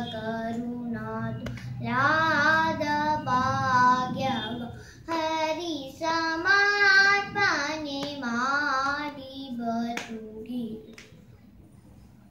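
A young girl singing a Carnatic geetham unaccompanied, in long held notes with wavering pitch ornaments. The phrases end about ten and a half seconds in.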